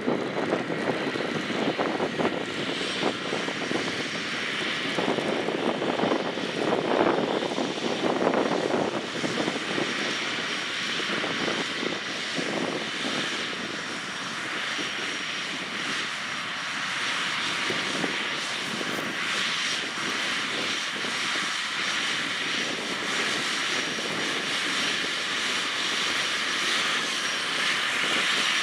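John Deere 9460R four-wheel-drive tractor's engine running steadily under load as it pulls a loaded Bunning tri-axle manure spreader, with a faint high whine above the engine noise.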